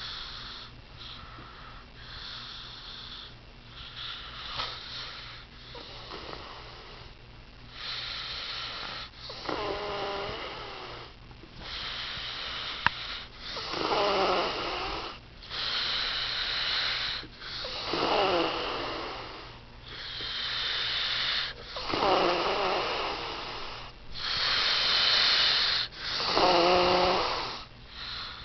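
A person snoring loudly in deep sleep: a vibrating, pitched snore alternating with a noisy hissing breath, one full breath about every four seconds, growing louder after the first several seconds. A single sharp click sounds about 13 seconds in.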